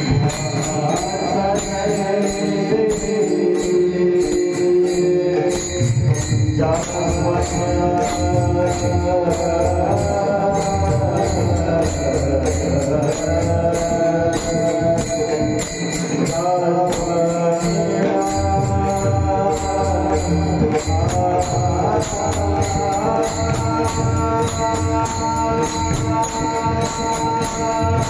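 Marathi bhajan music: a sustained melody with mridang drumming beneath it and small hand cymbals clinking on a steady beat.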